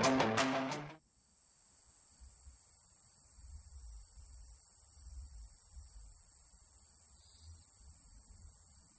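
Music cuts off about a second in, leaving a steady high-pitched hiss with a faint low rumble underneath.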